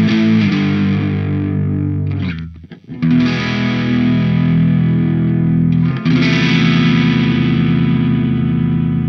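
Electric guitar (a Fender Stratocaster) played through a TC Electronic MojoMojo overdrive pedal: three long-held, overdriven chords. The sound briefly drops away about two and a half seconds in before the next chord, and a third chord comes in at about six seconds.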